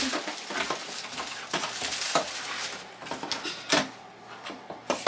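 Plastic bag rustling and crinkling as it is pulled off an Instant Pot pressure cooker, with scattered clicks and knocks of the cooker and its cardboard box being handled; one louder knock comes a little under four seconds in.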